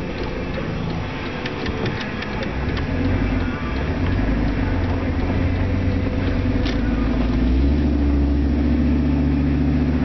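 Truck engine and road noise heard from inside the cab as it pulls away and speeds up, running louder from about three seconds in and again from about seven and a half seconds in. A few light clicks and rattles in the first few seconds.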